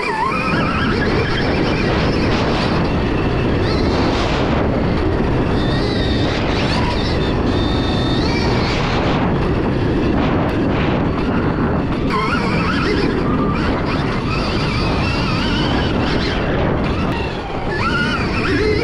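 Stark Varg electric dirt bike ridden hard, with a loud, steady rush of wind and trail rumble. Over it comes a thin electric-motor whine that rises and falls in pitch with the throttle, with no engine exhaust note.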